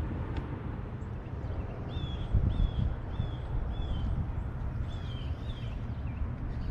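A bird calling a quick series of short, high, downward-slurred chirps, about two a second, over a steady low rumble. A dull thump about two seconds in is the loudest sound.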